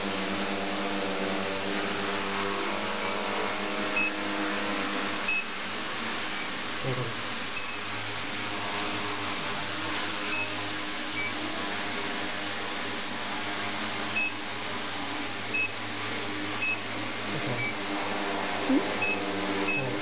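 Quadcopter's brushless motors and propellers hovering in altitude hold: a steady whine of several close pitches over a rushing hiss, wavering only slightly as the flight controller keeps the height. Short high beeps sound about once a second.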